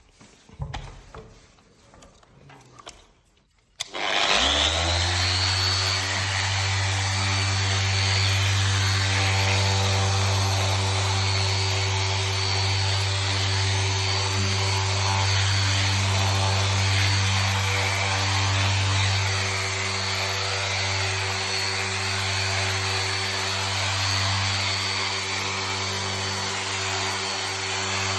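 Electric floor machine on a timber floor switching on about four seconds in, its motor spinning up quickly and then running steadily with a loud low hum and a rushing noise of the pad working the floor. A few faint knocks of handling come before it starts.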